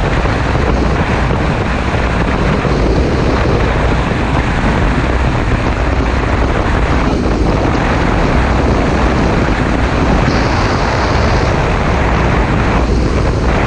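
Loud, steady wind rush on the microphone from riding a 2015 Yamaha FJ-09 motorcycle at road speed.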